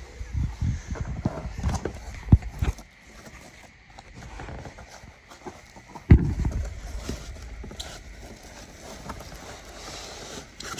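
A cardboard box with a pool robot vacuum inside being handled and pulled: a quick run of knocks and scrapes in the first few seconds, a loud thump about six seconds in, then quieter scuffing.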